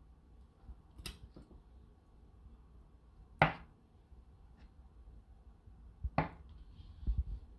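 Chef's knife slicing through avocado and knocking on a plastic cutting board: three sharp taps a few seconds apart, the middle one loudest, then a few softer knocks near the end.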